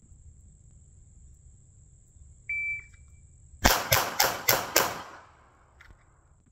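A shot timer gives one short beep to start the string. About a second later a CZ Shadow 2 9mm pistol fires five rapid shots, roughly a quarter second apart, in just over a second, and the echo fades after the last. The string reads 2.28 s on the timer, a pass for the 15-yard five-shot standard.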